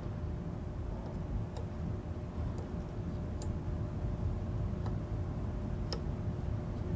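Faint, scattered metallic clicks and ticks as a small nut is threaded by gloved fingers onto a stud, with one sharper click near the end, over a steady low hum.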